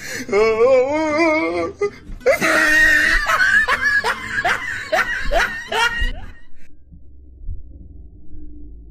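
A person's voice wavering in a drawn-out cry, then loud laughter in quick repeated bursts that stops about six seconds in.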